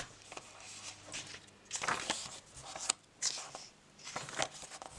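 Paper rustling as a thick paperback guidebook is handled and its pages are turned: a few soft swishes about a second apart, with light handling ticks between.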